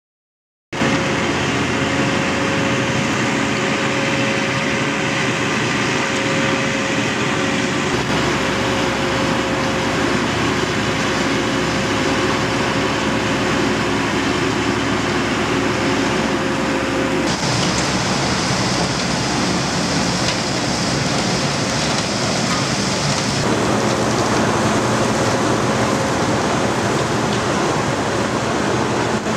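Road planing (cold milling) machine at work: loud, steady machinery noise of its engine and conveyor, with asphalt planings pouring off the conveyor into a tipper truck. It starts abruptly under a second in, carries a steady hum for the first half, and its tone shifts a few times.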